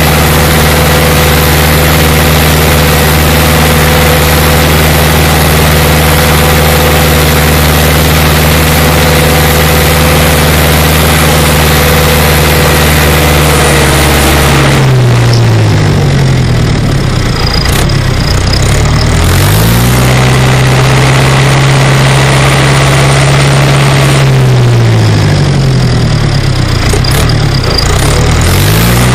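Case IH 845 tractor's four-cylinder diesel engine running steadily while working the soil. Its engine speed drops and comes back up twice, about halfway through and again near the end.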